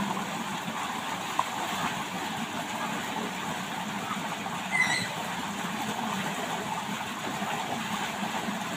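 Steady rush of running water, with a brief high squeal about five seconds in.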